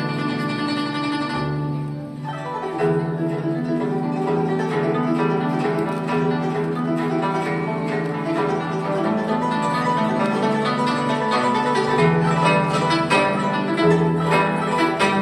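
Guzheng (Chinese zither) played solo: a melody of quick plucked notes over sustained low notes. The music thins out briefly about two seconds in, then picks up again.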